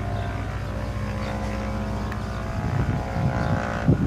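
Small propeller airplane's engine running with a steady drone. From about two and a half seconds in, wind buffets the microphone and grows to the loudest sound near the end.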